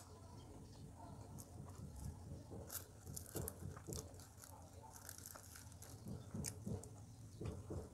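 A person chewing pizza close to a clip-on microphone, with short crackly crunches of crust, most of them around the middle.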